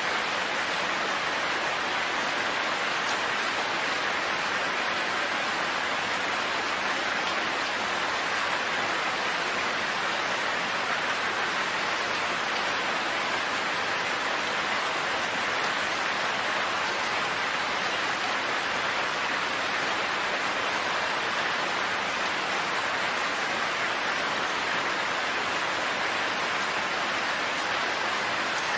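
Steady, continuous rainfall, an even hiss of rain with no pauses or changes.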